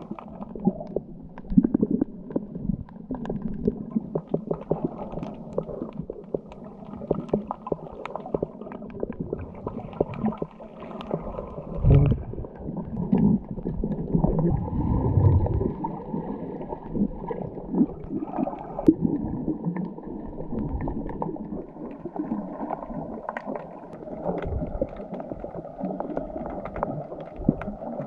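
Muffled underwater water noise picked up by a submerged camera while snorkelling, with many small clicks and crackles throughout. It swells louder and deeper for a few seconds near the middle.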